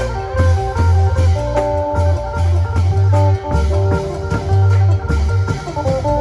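Isan phin (plucked lute) playing a quick, lively melody in the lam ploen style over a pulsing bass line and a steady drum beat.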